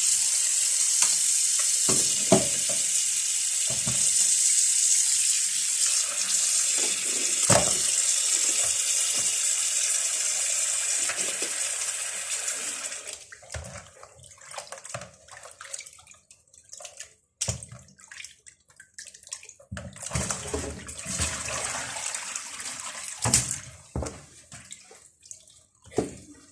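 Kitchen tap running into a plastic basin while hands rub and splash fish in the water to rinse off lemon juice. About halfway through the tap is turned off, leaving scattered sloshing and knocking as the fish are handled in the water.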